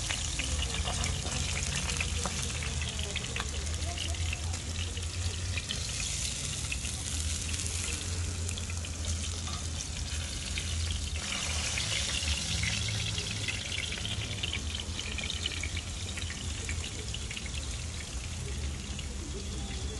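Hot, freshly fried herring fillets sizzling and crackling as the oil drains onto paper towels, with a low steady rumble underneath.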